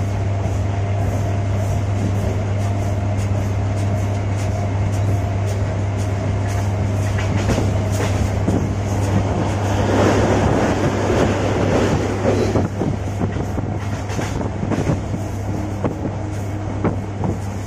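Passenger train running, heard from inside the coach at an open barred window: a steady low rumble of the carriage with irregular clicks and rattles, busier about ten seconds in.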